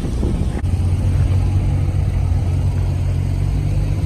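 A motor vehicle engine running with a steady low drone, which grows a little louder about half a second in.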